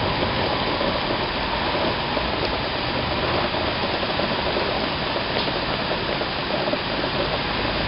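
Heavy downpour in a thunderstorm: dense rain pouring steadily onto trees and pavement, a continuous even hiss.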